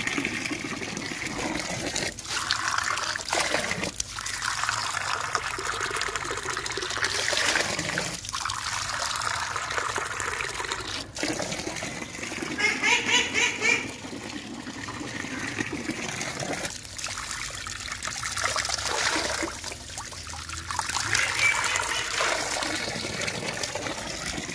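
Running water splashing into and over clay bowls as they are rinsed by hand, with a few sharp knocks of the bowls being handled.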